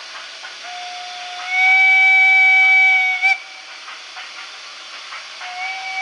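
A steam whistle sound played through a Märklin HO model steam locomotive's sound decoder. One long whistle starts softly, swells, and cuts off about three seconds in; a second, shorter whistle begins near the end.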